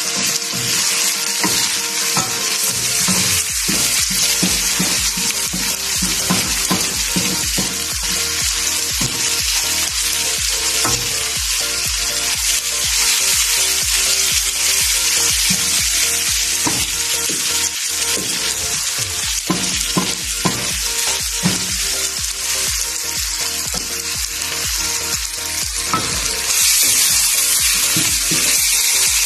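Chicken pieces sizzling in hot oil in a wok while a wooden spatula stirs and scrapes them, with frequent short scraping strokes over the steady sizzle. The sizzle grows louder near the end.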